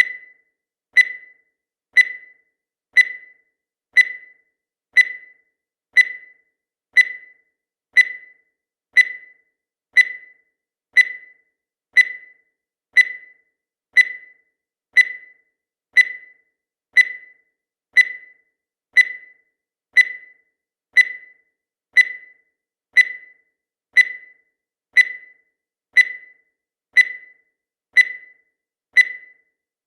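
Countdown timer sound effect: a short, high-pitched beep once every second, each fading away quickly, in an even steady rhythm.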